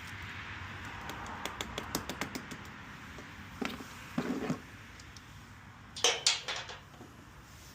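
Hand tools working on a car battery: a quick run of sharp clicks, then several heavier knocks, the loudest pair about six seconds in.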